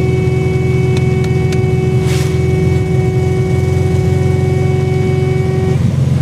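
Volkswagen Beetle's car horn blaring in one continuous steady tone, stuck on and refusing to stop, then cutting off near the end. An engine runs underneath.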